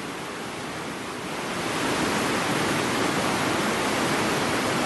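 River rapids: fast water rushing and churning over rocks, a steady rushing noise that grows louder about a second and a half in.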